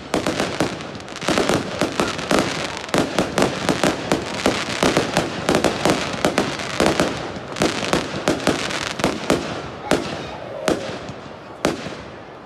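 Aerial fireworks bursting in a rapid string of sharp bangs, many close together through the middle, thinning to a few single bangs near the end.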